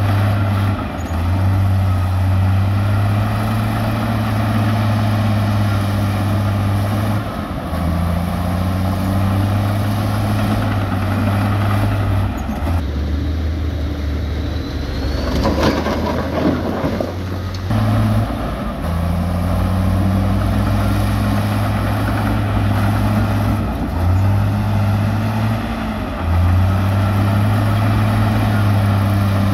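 Heavy diesel engines of earthmoving machines running under load. Their low drone steps up and down in pitch every few seconds, and a short noisy burst comes about halfway through.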